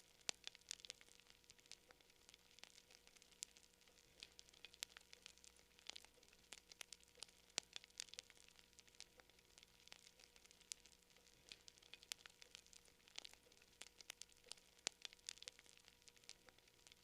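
Campfire crackling: irregular sharp pops and snaps of burning wood, several a second, over a faint hiss.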